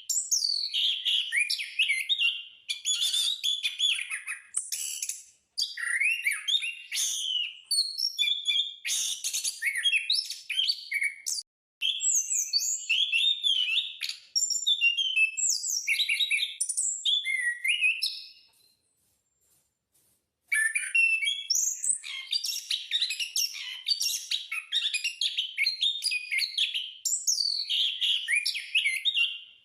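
Anis (ground thrush) singing nonstop: a long run of quick, varied whistled and warbled phrases, breaking off for about two seconds past the middle before carrying on.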